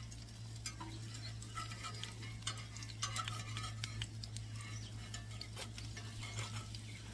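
Naan frying in oil in a cast-iron skillet: light crackling and popping, with metal tongs clicking and scraping against the pan, over a steady low hum.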